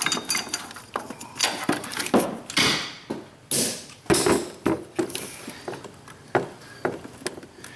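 An air ratchet running in a few short bursts as bolts are backed out, with sharp metallic clicks and knocks from tools and parts being handled throughout.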